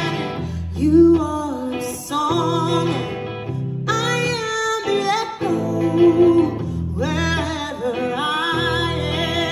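A woman singing lead in phrases of a few seconds, with her own semi-hollow-body electric guitar and steady low bass notes underneath, performed live.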